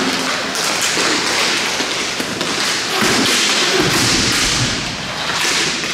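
Hockey play: sticks and puck giving several sharp taps and dull thumps over a constant hiss of rink noise.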